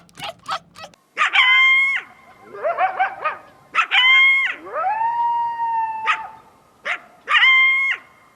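A dog-like animal whining and howling: three short high cries, wavering lower whimpers between them, and one longer call that rises and then holds about halfway through.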